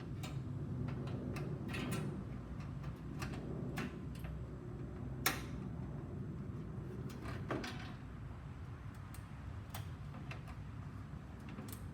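Scattered light clicks and taps as a motherboard is lowered into a PC case and fitted against its metal I/O shield and standoffs, the sharpest click about five seconds in, over a steady low hum.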